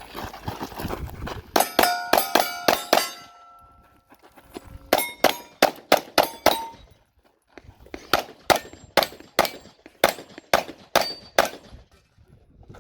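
Rapid pistol shots at steel targets, each followed by the ring of a hit steel plate. The shots come in three quick strings separated by pauses of about two seconds.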